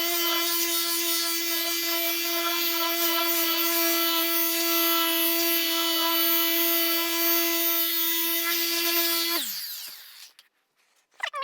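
Milwaukee electric buffing polisher running steadily at speed with a constant whine while cutting compound into a car's paint. About nine and a half seconds in it winds down, the pitch falling as it stops, followed by a few brief squeaks near the end.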